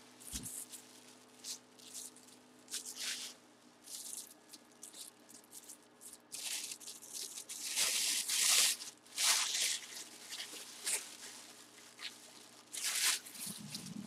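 Plastic packaging and bubble wrap rustling and crinkling in irregular bursts as a package is unwrapped, busiest in the middle and again near the end.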